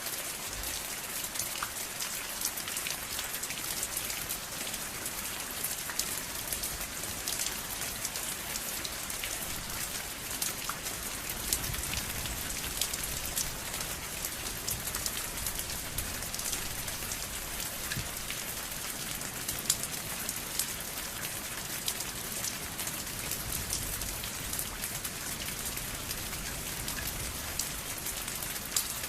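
Steady rain falling, an even hiss dotted with many individual drop ticks and splats.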